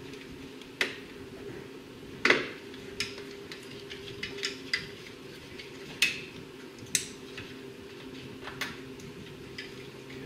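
Irregular clicks and light plastic clatter of the radiator cooling fans' wiring harness connectors and clips being handled and snapped into place, the sharpest click about two seconds in.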